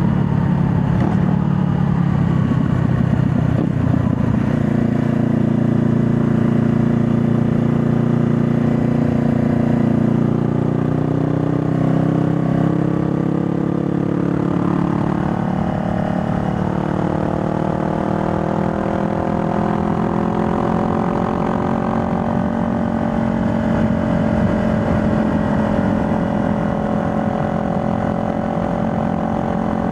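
2020 Honda Rebel 500 motorcycle's parallel-twin engine running under way. Its note shifts and bends about halfway through, then climbs slowly and holds steady toward the end.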